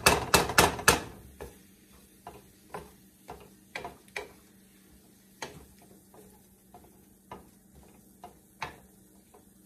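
Wooden spatula knocking and scraping against a stainless-steel skillet while stirring sautéed vegetables: a quick run of loud knocks in the first second, then scattered lighter taps.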